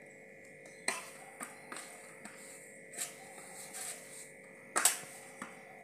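Hands kneading soft maida dough in a stainless steel plate: irregular knocks and scrapes as the dough and hands press against the metal, the sharpest a little before the end, over a faint steady electrical hum.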